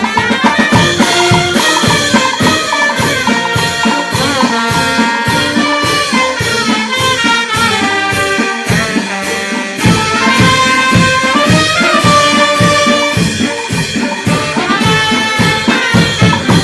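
A brass band playing a pasodoble: trumpets, trombones and saxophones carry the melody over a steady drum beat.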